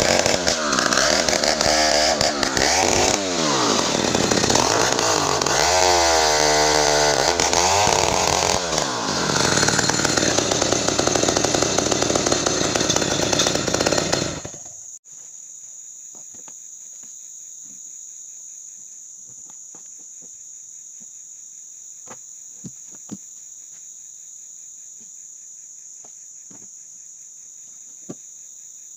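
Large two-stroke 070 chainsaw, home-assembled, running at high revs, its pitch rising and falling as it works through ironwood. It shuts off abruptly about halfway through. After that a steady high insect drone remains, with a few faint clicks.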